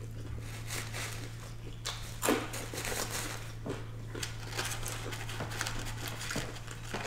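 Soft rustling and light clicks of fast food and its paper and cardboard packaging being handled, with a slightly louder rustle about two seconds in, over a steady low hum.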